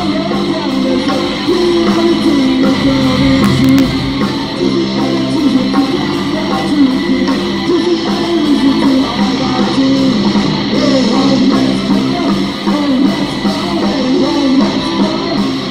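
Live rock band playing an instrumental passage: electric guitars leading a wavering melody over bass guitar and drums.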